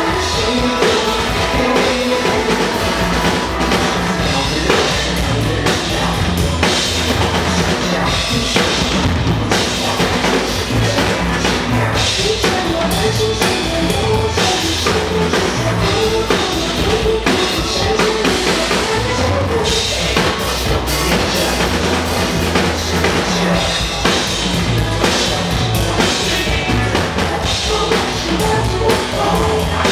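Drum kit played along to a rock song's backing track, the bass drum and other drum hits over the recorded band.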